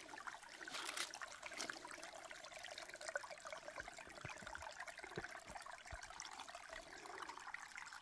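Spring water trickling faintly over stones in a shallow rocky stream, with a few faint clicks. The spring is still flowing undiminished.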